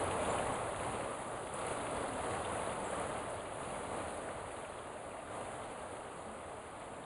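Steady rush of flowing creek water, slowly fading.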